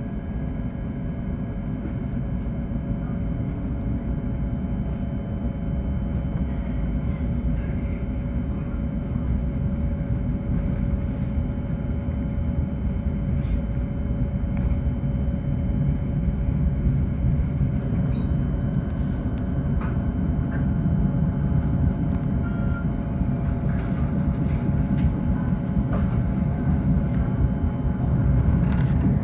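A moving NJ Transit Comet V passenger train heard from on board: a steady rumble of wheels on the rails that grows slowly louder, with a few faint clicks and a steady hum.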